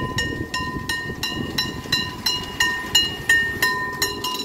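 A bell struck rapidly and evenly, about three ringing strikes a second.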